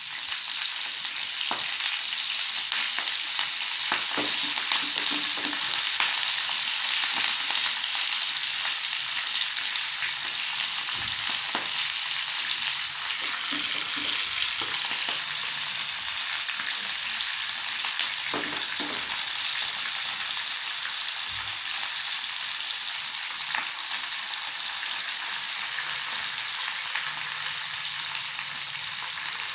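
Hot oil sizzling steadily in a frying pan as handfuls of ponnaganti (dwarf copperleaf) greens are dropped onto a fried tempering of dals, mustard seeds and red chillies, with occasional small pops and crackles.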